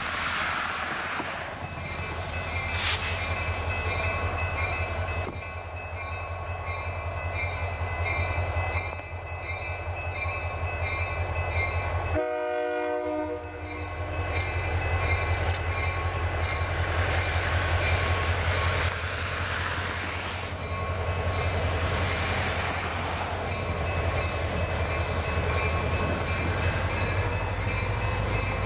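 Diesel locomotives of a passenger train running past with a steady low engine rumble, the train horn sounding over it. There is a brief break in the rumble about halfway through.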